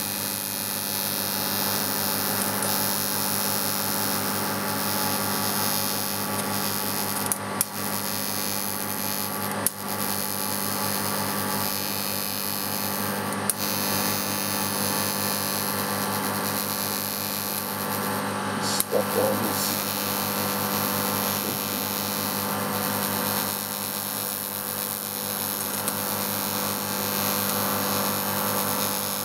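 TIG welding arc burning steadily at the weld puddle, with a constant electrical hum and hiss from the torch and welder. A few short clicks break it, about a quarter of the way in, near the middle and about two-thirds through.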